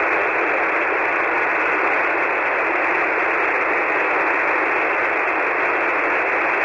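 Steady static hiss from a ham radio receiver on single-sideband, held within the narrow voice band with no station transmitting on the frequency.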